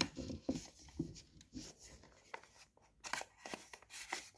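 Hard plastic parts of a massage ball's suction wall mount being pushed and twisted together by hand: irregular clicks and scrapes, busiest about three seconds in.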